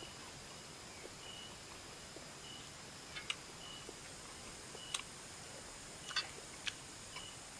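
A few sharp, short mouth clicks and smacks of someone eating noodles, over a steady hiss, with short faint high chirps repeating about once a second.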